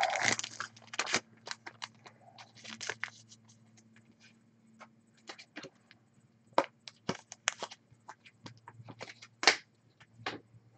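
Scattered soft clicks, taps and a brief rustle of trading cards being handled and set down on a wooden tabletop, over a faint steady low hum.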